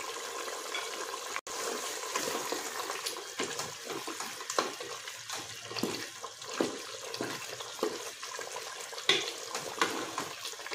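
Mutton shorba broth simmering and bubbling in an open pressure cooker pot while a ladle stirs it, with irregular short clicks and splashes. A brief break in the sound about a second and a half in.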